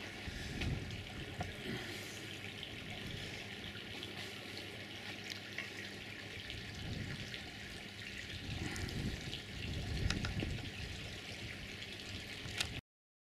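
Water trickling steadily from a garden fountain, with a few low rumbles along the way; the sound cuts off suddenly near the end.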